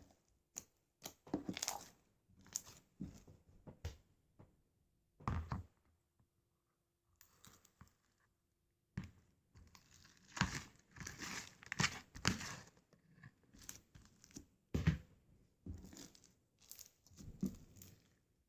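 Slime being handled by hand, pressed and stretched, making a run of short, irregular sticky, crinkly sounds. There is a quieter stretch of a few seconds around the middle.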